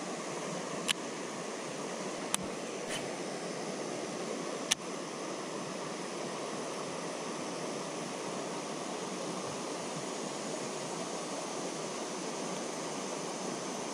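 Steady rush of flowing river water around a wading angler, with four sharp clicks in the first five seconds.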